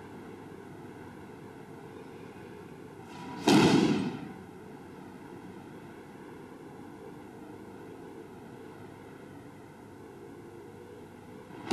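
Two heavy thuds of judoka being thrown onto tatami mats, the first about a third of the way in and the second at the very end, each dying away over about half a second, over a steady background hiss.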